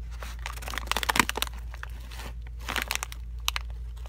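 Crinkling of a bag of cheese and onion potato chips being handled, in crackly bursts about a second in and again near three seconds.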